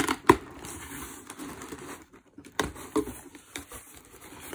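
Cardboard shipping box being opened with a pocket knife: packing tape slit and torn, and the flaps pulled open with tearing and rustling of cardboard. Sharp knocks come at the start and again about two and a half seconds in.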